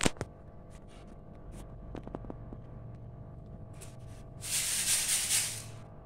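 A caged budgerigar flapping its wings in a short rustling flurry of about a second and a half, past the middle, with a few light clicks and taps before it.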